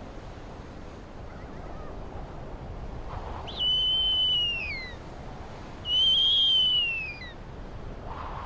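Female snowy owl giving two long, high whistled calls, each held level and then sliding down in pitch at the end, a second or so apart. They are her begging calls to the male for food.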